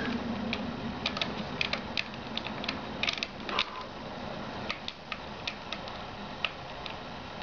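Light, irregular clicks and taps of metal bicycle parts being handled, as a front wheel is fitted into a suspension fork and its axle fastened.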